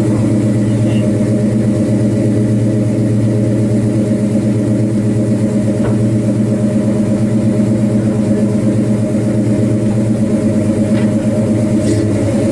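Pontiac GTO Judge V8 idling through its dual exhaust, a steady loping rumble from the tailpipes that pulses evenly.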